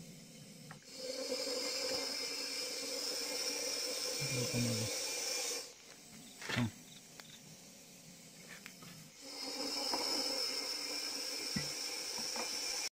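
Russell's viper hissing loudly in two long exhalations of about five and four seconds, with a quieter gap between them. It is the snake's defensive warning hiss to keep a threat away, likened to a pressure-cooker whistle.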